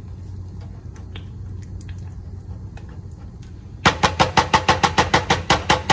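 Gas range burner igniter clicking rapidly, about eight sharp clicks a second for the last two seconds, as the burner knob is turned off past the light setting. Before it there is only a low steady hum and faint stirring in a pot.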